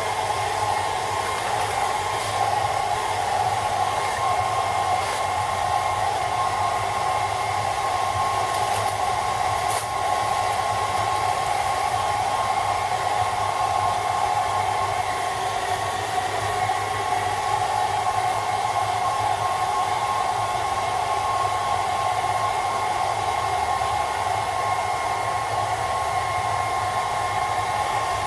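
Handheld hairdryer running steadily, a constant blowing rush with a high whine.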